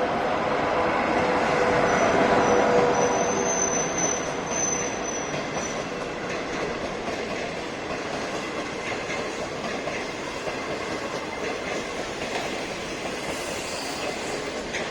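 Train rolling past at close range, a steady rumble of wheels on rails, with a thin high-pitched wheel squeal from about two to six seconds in.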